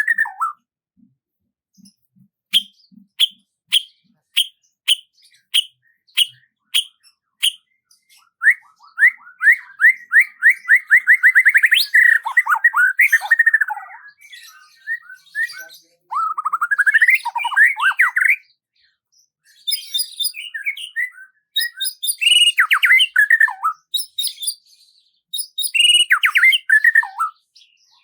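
A songbird singing varied phrases: a run of short, evenly spaced chirps about twice a second, then a long rapid trill that rises, then several quick falling phrases, with short pauses between. The background is silent.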